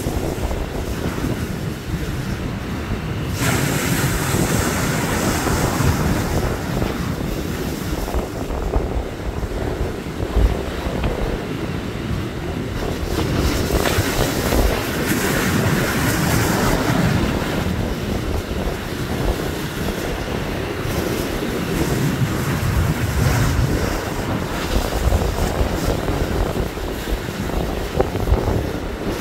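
Ocean surf surging and breaking against a rocky ledge, a continuous wash that swells and eases every few seconds, with wind buffeting the microphone.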